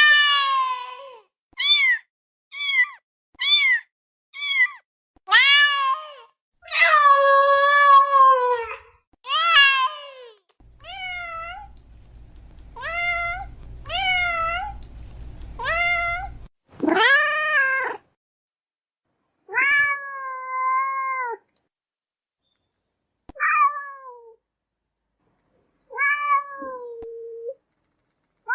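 A domestic cat meowing over and over: a quick run of short meows, then longer drawn-out ones with pauses between, a couple of them rising and falling in pitch.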